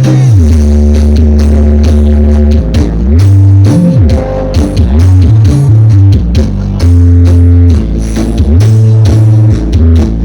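Very loud electronic dance music played through a large horeg sound-system stack, dominated by heavy bass notes that slide up and down.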